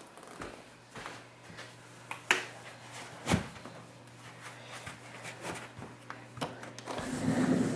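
Scattered light clicks and knocks, the two loudest a little over two and three seconds in, over a faint steady low hum; a louder rustling noise builds near the end.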